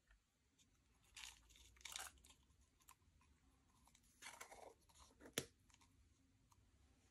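Faint slime handling: a few short, crackly squishing bursts, then a sharp click about five seconds in.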